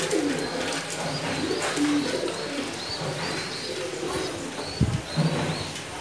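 Domestic pigeons cooing, repeated low warbling coos, with a brief thump about five seconds in.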